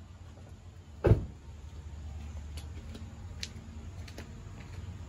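Silverado 1500 engine idling through a DynoMax mini bullet muffler, a low steady exhaust rumble. A single loud thump about a second in dies away quickly.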